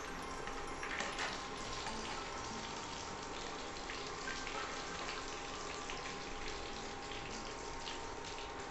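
Marinated rohu fish pieces frying in hot oil in a steel kadai: a steady sizzle with many small crackles.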